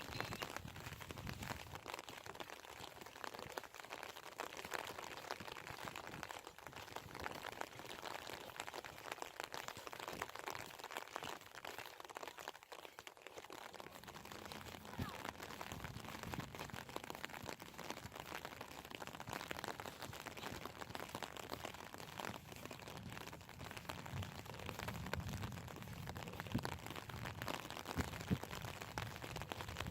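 Steady light rain falling, full of small patters and drips, with the footsteps of someone walking through it.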